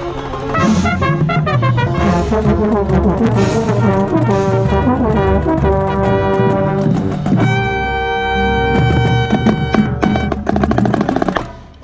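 Marching band playing, brass over drums. About seven and a half seconds in the band holds a chord, then plays fast repeated notes that break off sharply near the end.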